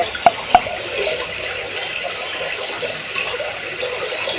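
Water bubbling and gurgling with a steady hiss, and a few short bubble pops in the first second.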